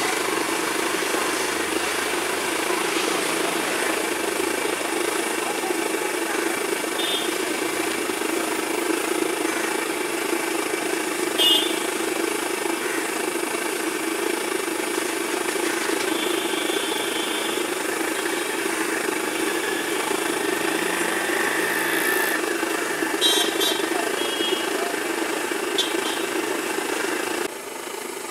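Hot oil bubbling and sizzling steadily as raw banana slices deep-fry in a large kadai, with a few short high tones now and then. It turns quieter about a second before the end.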